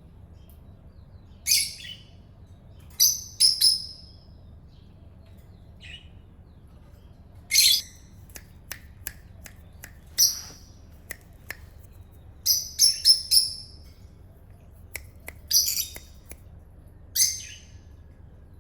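Short, high-pitched chirping calls, about a dozen, some single and some in quick runs of two or three, with scattered light clicks between them.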